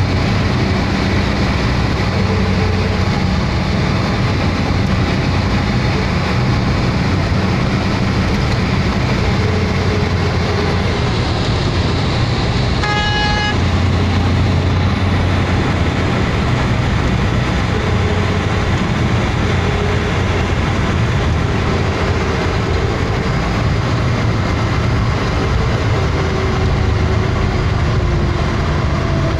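Steady engine and road noise of a vehicle heard from inside its cab while driving, with a single vehicle horn honk lasting about a second, a little under halfway through.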